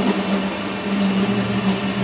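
A motor running steadily, its low hum shifting slightly in pitch.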